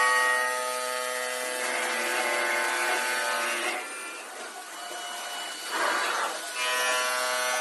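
CNC stone bridge saw running, its motors giving a steady multi-toned whine, with two spells of hissing noise: a longer one from about a second and a half in, and a short one about six seconds in.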